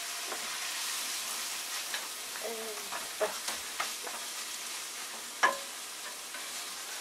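Minced pork sizzling steadily as it is stir-fried in a frying pan, with a wooden spatula stirring and a few sharp knocks against the pan, the loudest about five and a half seconds in.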